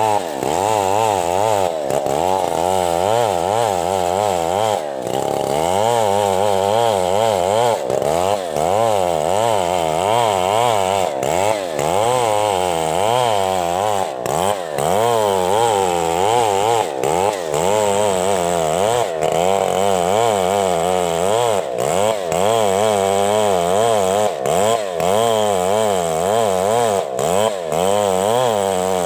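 Stihl two-stroke chainsaw running at high revs while ripping lengthwise through a coconut palm trunk, its engine pitch wavering quickly up and down under the load of the cut.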